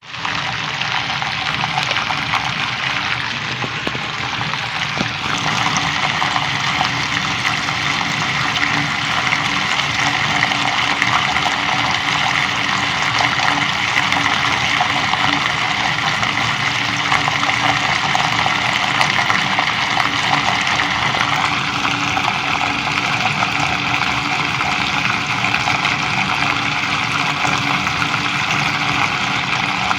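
Water running steadily out of a pipe in a continuous rushing stream. Its tone changes slightly about five seconds in and again a little past twenty seconds.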